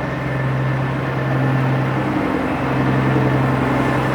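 Large engine idling with a steady low hum, which breaks off briefly about two seconds in and then carries on.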